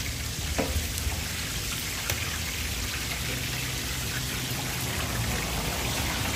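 Chapli kebabs frying in a large pan of hot oil, a steady sizzling hiss with a low rumble beneath it and a few faint clicks.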